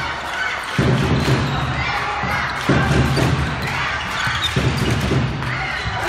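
Indoor handball game: the ball bouncing and thudding on the hard court floor, with shoe squeaks and shouting echoing around the large hall.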